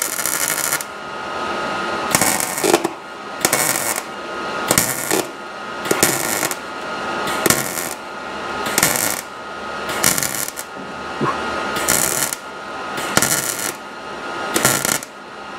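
Welder stitch-welding car-body sheet metal in about a dozen short crackling bursts, roughly one a second, with brief pauses between tacks. The arc is running on dirty metal.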